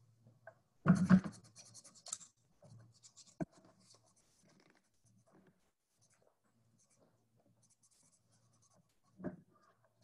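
Yarn being handled and cut into short lengths with small scissors: soft rustling and scratching, loudest about a second in, with a few small clicks and a light knock near the end.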